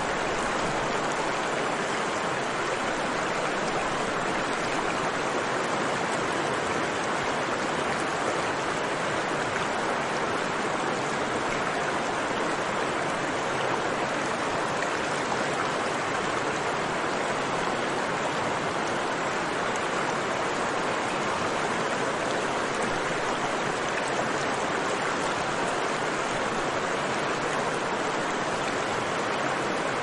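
Mountain river rushing over rocks: a steady, even wash of flowing water.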